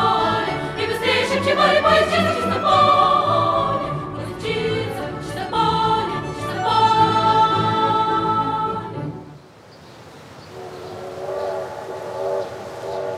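Choral singing in the soundtrack music, which cuts off about nine seconds in and leaves a fainter, quieter sound.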